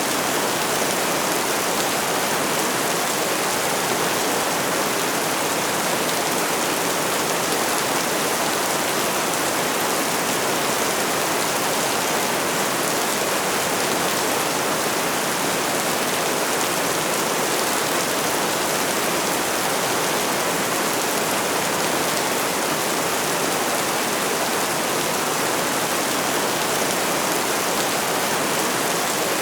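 Steady rainfall: an even, unbroken hiss of rain with no pauses or changes in strength.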